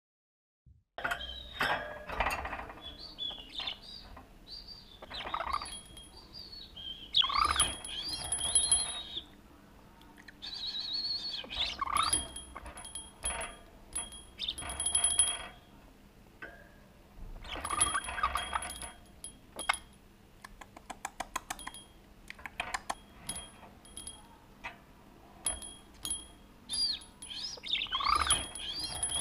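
Blue budgerigar chirping and warbling at close range, with a small cage bell jingling in quick runs of strikes several times as the bird rings it.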